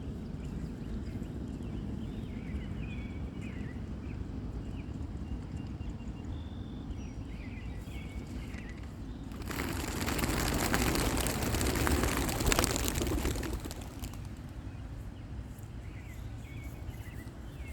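Young racing pigeons released from a crate: a loud clatter of many wings flapping for about four seconds in the middle, over a steady low rumble, with small bird chirps in the first half.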